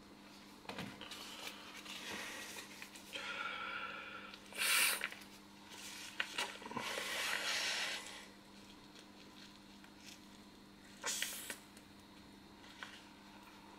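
A person inflating a vinyl inflatable ring by mouth: a few rushes of breath into the valve, with sharp, loud intakes of breath between blows.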